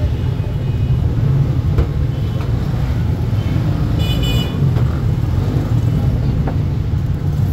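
Street traffic with a steady low rumble and a short car horn toot about four seconds in.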